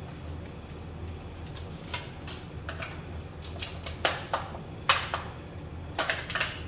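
Irregular metallic clicks and clinks of hand tools and bolts as a radiator is bolted in, with a few sharper clanks in the middle, over a steady low hum.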